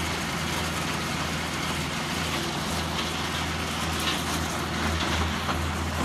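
Engine of a ride-on trencher running steadily as it cuts a trench through wet, muddy ground for a water line.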